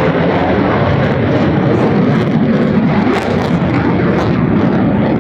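Fixed-wing aircraft engine noise, loud and steady: a dense rush with no clear tone.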